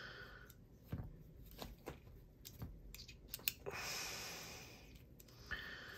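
Faint scattered clicks and taps of small hand screwdrivers being handled, swapped and set against a folding knife's pivot screw, with a soft rush of noise lasting about a second and a half around four seconds in.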